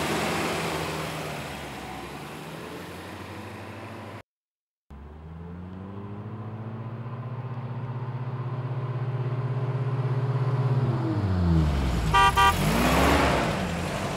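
Car engine sound effects: an engine running steadily, cut off briefly about four seconds in, then an engine tone growing louder as the car approaches, its pitch bending as it goes by. Two short car-horn beeps near the end.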